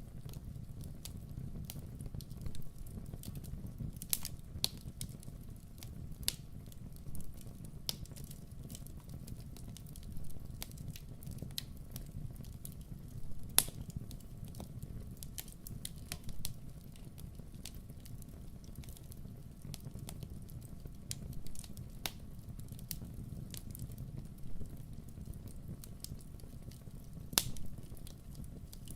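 Campfire burning: a steady low rumble of the flames with scattered crackles and pops of burning wood, a few sharper pops about four seconds in, about halfway through and near the end.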